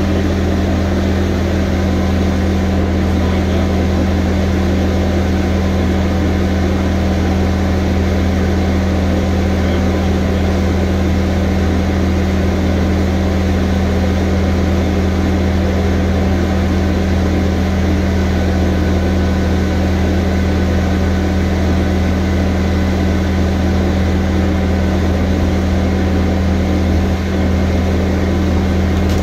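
Bobcat skid-steer loader's engine running at a steady, unchanging speed, a loud, even low drone.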